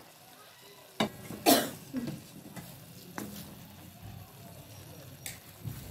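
A wooden spatula stirring boiled methi in a kadai just topped with hot ghee tadka. Several sharp scrapes and knocks against the pan come from about a second in, the loudest soon after, over a low steady hiss from the steaming pan.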